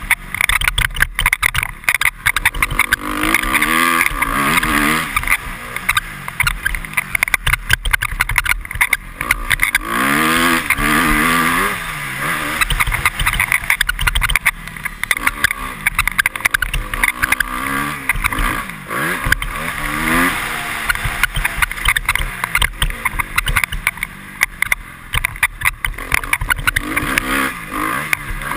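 Honda CRF250R four-stroke single-cylinder engine being ridden hard, revving up and dropping back again and again through the track's corners and straights. Wind buffets the helmet camera, and there are frequent clicks and squeaks from the helmet visor over bumps.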